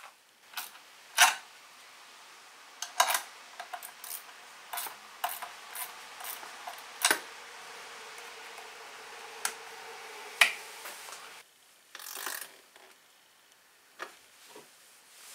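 Irregular sharp clicks and knocks of plastic and metal parts being handled as a car battery and its terminal fittings are refitted, about a dozen in all. The loudest come about a second in and about ten seconds in.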